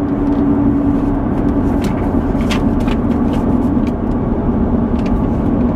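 A car running at road speed: a steady engine drone over road noise, its pitch dipping slightly about two thirds of the way through.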